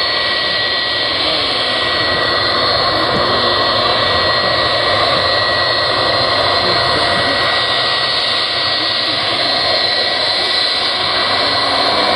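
A Boeing 757-300's twin turbofan engines running at low taxi power as the airliner rolls along the taxiway: a steady jet whine with high tones over a broad rush of noise.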